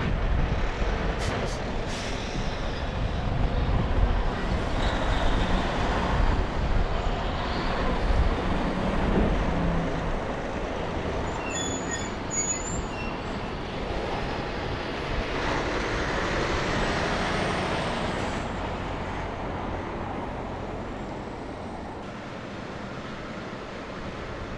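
Tractor-trailers pulling past at low speed: diesel engines running and tyres on pavement. The sound is loudest at the start and fades gradually toward the end.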